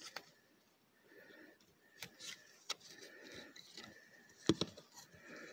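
Faint handling noise from fingers working a small elbow pad onto a plastic action figure's arm: scattered small clicks and scrapes, the loudest about four and a half seconds in.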